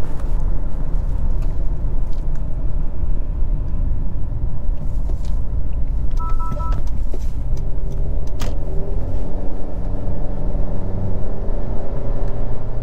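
In-cabin sound of a 2023 Honda CR-V with a 1.5-litre turbocharged four-cylinder and CVT: steady road rumble, then from about halfway the engine note slowly rises in pitch as it pulls through the mid-range under throttle. A brief two-tone chime sounds about six seconds in, and a single click comes a couple of seconds later.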